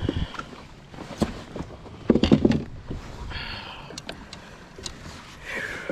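Knocks and rattles of handling in a small fishing boat, with a louder cluster of thumps about two seconds in and a few brief rustles.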